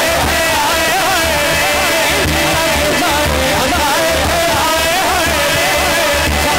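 A man singing a devotional song into a microphone over a PA, his voice holding long, ornamented, wavering notes, with a steady low beat underneath.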